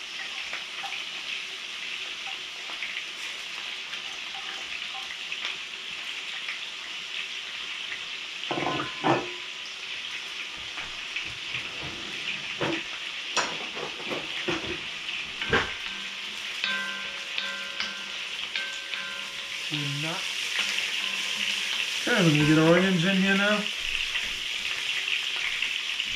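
Sliced peppers sizzling in olive oil in a cast iron Dutch oven, with meatballs and sausage frying in a cast iron skillet alongside: a steady frying hiss. A few sharp knocks of utensils on the pans.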